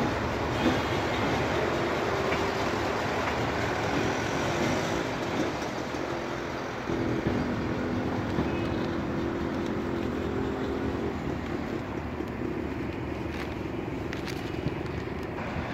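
TCDD DE 24000-class diesel-electric locomotive running as it shunts a passenger coach slowly along the track, a steady engine and rolling noise with a hum that eases off about eleven seconds in as the train draws away.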